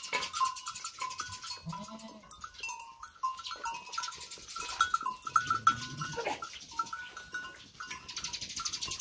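A flock of sheep and goats bleating, once about two seconds in and again around five to six seconds, over a repeated high ringing tone.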